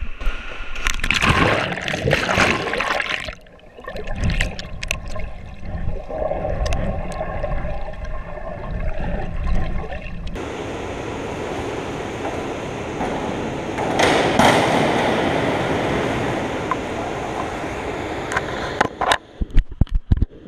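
A diver plunges into a swimming pool off a diving board: a loud splash on entry, then muffled underwater bubbling and gurgling heard from a camera carried into the water. Splashing follows as the diver surfaces and swims to the edge, with a few sharp slaps near the end.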